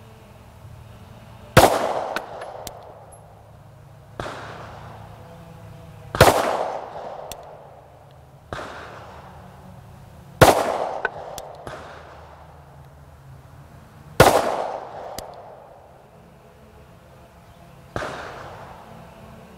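Four slow-fire shots from a SIG M18 9mm pistol with 124-grain +P ball ammunition, roughly four seconds apart, each a sharp crack with a short decaying echo. Fainter gunshots fall between them.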